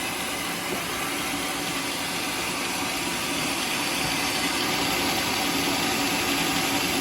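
Homemade sawmill's engine running steadily with a constant mechanical hum, growing slightly louder about halfway through.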